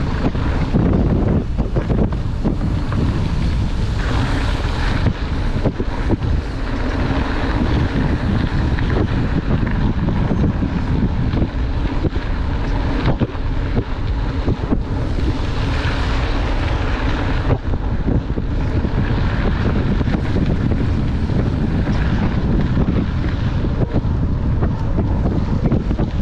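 Steady wind rush buffeting the microphone of a handlebar-mounted camera on a mountain bike riding fast downhill, mixed with the rumble of the tyres rolling over a gravel forest road.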